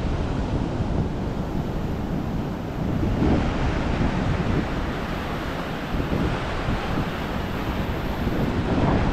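Ocean surf breaking and washing up a beach, with wind buffeting the microphone; the wash swells louder about three seconds in and again near the end.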